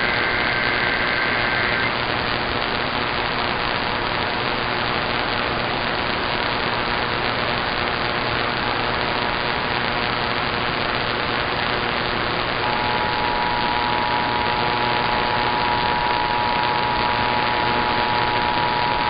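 Steady radio static hiss from an off-air receiver. In the first two seconds there is the tail of an EAS digital header burst, a pair of high data tones. About 13 s in, the two-tone EAS attention signal starts and holds steady over the hiss.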